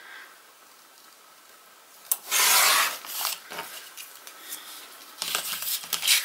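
Paper trimmer's sliding blade cutting through a strip of paper: a click about two seconds in, then a loud rasping slide of the blade carriage along the rail. A second stretch of paper rubbing and sliding near the end.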